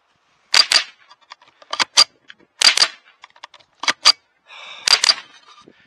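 .22 rimfire semi-automatic rifle (Smith & Wesson M&P 15-22) firing at steel plate targets: about five pairs of sharp cracks, each pair a fraction of a second apart, spread over the few seconds.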